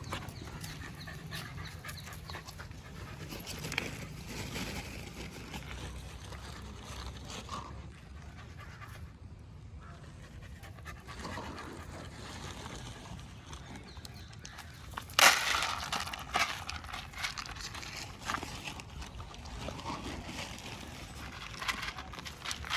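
A dog panting, with a few loud, sharp noises about fifteen seconds in and smaller ones near the end.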